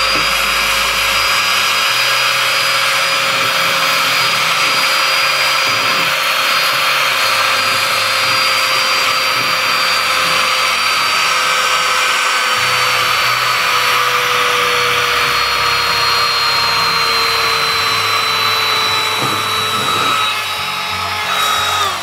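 Small cordless handheld mini vacuum cleaner running at full speed, a high motor whine over the rush of air, its pitch sagging slowly, while it sucks up spilled dal, rice and tea leaves. It is switched off at the very end and the whine winds down.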